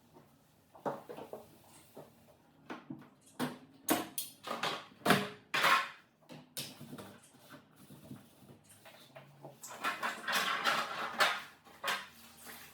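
Irregular knocks and clatter of fridge parts and ice being handled while a fridge is cleaned out during defrosting, with a longer rough, scraping-like stretch about ten seconds in.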